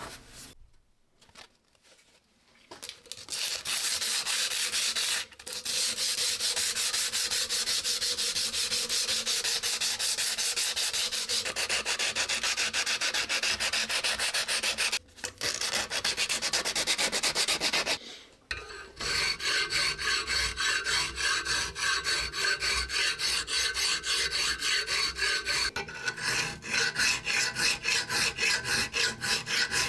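Hand sanding with quick back-and-forth strokes, starting a couple of seconds in and pausing briefly a few times. In the last third the strokes become more separate and rhythmic, moving toward filing.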